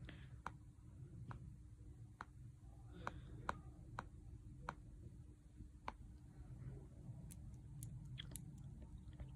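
Plastic stylus tip tapping and sliding on an iPad's glass screen while drawing: faint sharp clicks roughly once a second, with soft scratching strokes between them.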